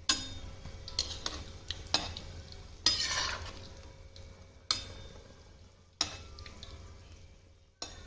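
Gujiyas frying in hot ghee in an iron kadhai with a gentle sizzle, while a metal utensil stirs and turns them, knocking and scraping against the pan about once a second; the longest scrape comes about three seconds in.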